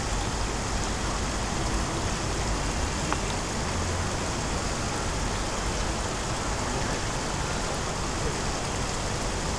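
Running water rushing steadily, with a steady low rumble underneath.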